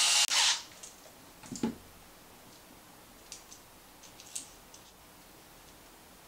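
Small cordless electric screwdriver whirring as it drives a screw into an RC car shock absorber, stopping within the first second after a short break. Then scattered light clicks and taps of the plastic and metal shock parts being handled.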